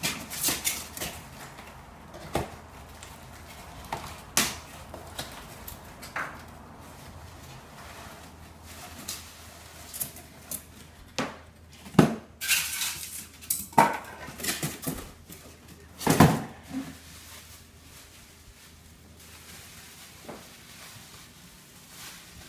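Cardboard, paper and bubble-wrap packing rustling and crinkling as wrapped espresso machine parts are lifted out of a box, with scattered knocks and clinks of the parts. The loudest knocks come about twelve and sixteen seconds in.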